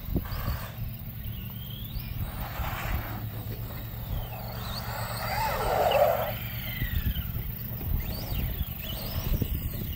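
Brushless motor of an Arrma Senton Mega RC short-course truck (HobbyWing 3660 4000KV on a Max10 SCT controller) whining, rising and falling in pitch as the throttle is worked. The loudest moment is a rush of noise about six seconds in.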